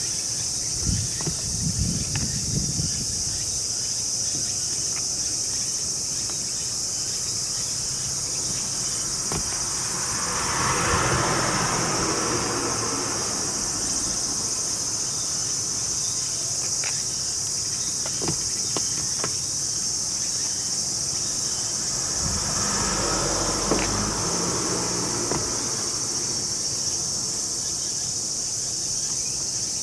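Steady high-pitched chorus of chirring insects. Two slow swells of broader noise rise and fade, about ten seconds in and again past twenty seconds, with a few faint clicks.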